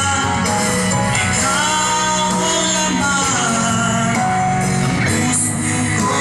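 A song playing: a singing voice over instrumental accompaniment, steady throughout.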